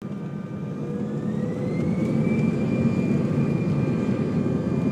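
Jet engines of an easyJet Airbus A320-family airliner spooling up to takeoff thrust: a heavy rumble that grows louder over the first two seconds, with a whine that rises in pitch and then holds steady.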